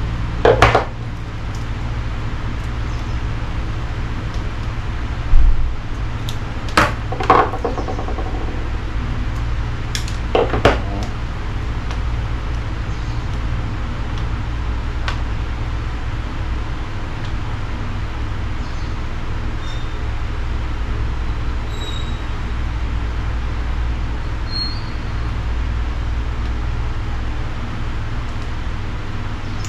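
A steady low background rumble with a few short knocks and clatters in the first ten seconds, from tools and parts being handled while a cable lug is fitted onto a heavy wire.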